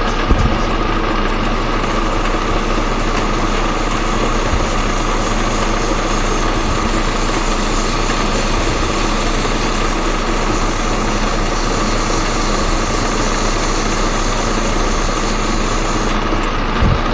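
Metal lathe running steadily, spinning a small brass piston while oiled 400-grit abrasive paper is held against it to polish it. A constant hum with a steady tone and a hiss of sanding; the hiss thins near the end.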